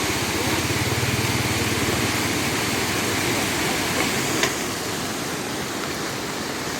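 Heavy rain hissing steadily, with a vehicle engine running underneath that is strongest in the first few seconds and fades after about four and a half seconds, when a single sharp knock is heard.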